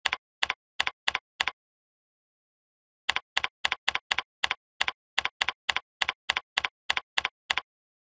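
Computer keyboard keystrokes, typing text: a short run of five clicks, a pause of about a second and a half, then a longer steady run at three to four keystrokes a second.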